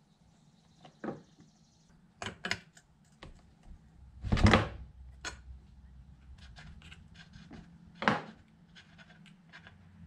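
Spark plug wrench being fitted and turned on a Husqvarna 55 Rancher chainsaw to unscrew the spark plug. It makes a series of short metallic clicks and knocks, the loudest about four and a half seconds in, with runs of light ticking in the second half.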